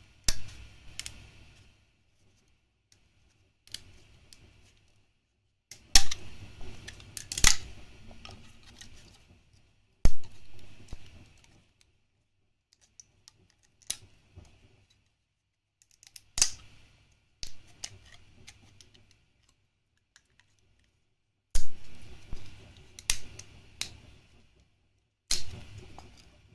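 Sharp snaps and cracks of 3D-printed PLA plastic as the support and brim material is broken off a printed part by hand, with scratchy rubbing between the snaps. Half a dozen loud cracks come at irregular intervals, the sharpest about six, seven and a half, and ten seconds in.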